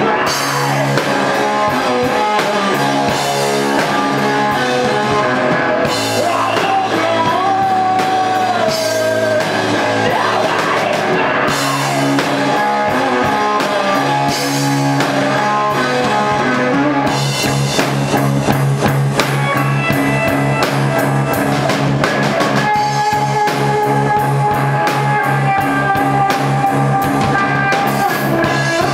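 Live rock band playing loud, with a drum kit and electric guitar.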